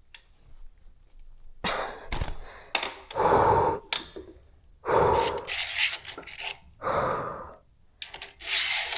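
About five separate rubbing, scraping strokes as wiring is pulled up through the e-scooter's handlebar.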